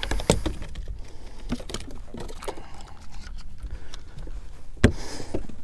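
Irregular clicks and light knocks of fishing tackle and boat handling while a double rig with two hooked speckled trout is reeled in and brought aboard. One sharp knock stands out about five seconds in.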